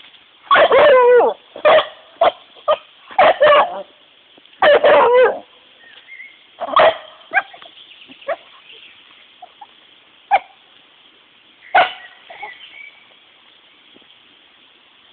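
A dog barking: a rapid run of loud barks over the first five seconds or so, two of them drawn out, then a few single barks spaced a second or more apart.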